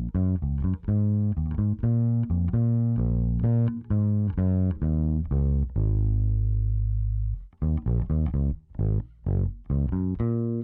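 Solo electric bass line played through the Virtual Tape Machine tape-emulation plugin: a run of plucked notes, one long held note in the middle, then short, choppy notes near the end.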